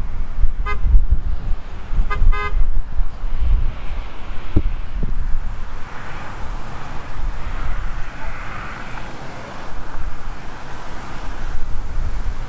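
Wind buffeting the microphone, with a vehicle horn tooting briefly once and then twice in quick succession about two seconds in.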